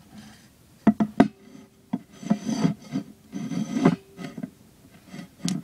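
Close handling noise: a plastic hand mirror knocking and scraping against the recording device, with a cluster of sharp knocks about a second in, two rough rubbing scrapes in the middle, and single knocks later.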